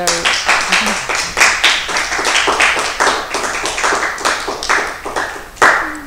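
A small audience clapping, the individual claps distinct and irregular, thinning out near the end.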